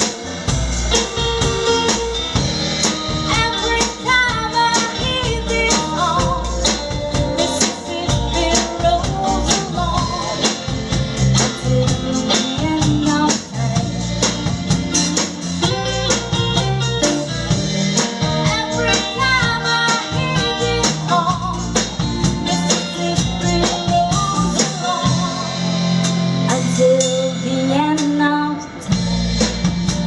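A small live band playing a song: singing over electric guitar, drum kit and congas, with a steady beat.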